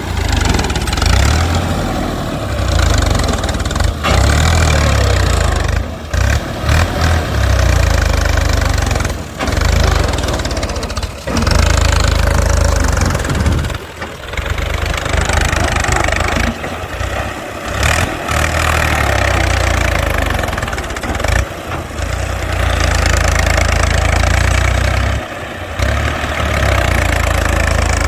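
Heavy diesel engine running hard, its loudness surging and dropping back several times.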